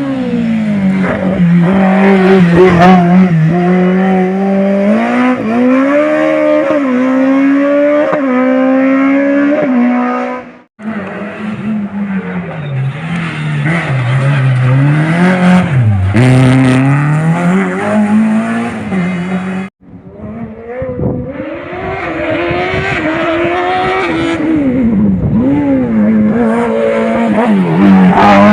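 Race car engine being driven hard, its pitch climbing and falling over and over with throttle and gear changes. The sound cuts off abruptly twice, about a third and two thirds of the way through, and comes back each time.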